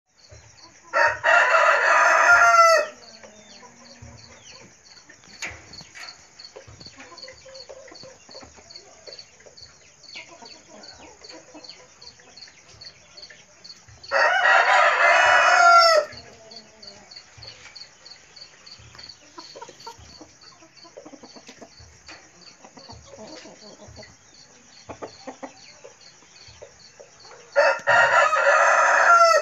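A rooster crowing three times, each crow about two seconds long, with chickens clucking quietly in between.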